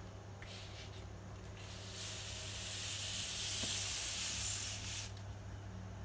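A bullfrog hissing: a short hiss about half a second in, then a long, louder hiss of about three seconds from near two seconds in.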